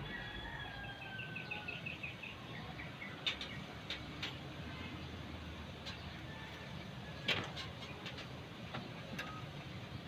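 A few sharp clicks over a steady low background hum, with a bird chirping in quick repeated notes during the first two seconds.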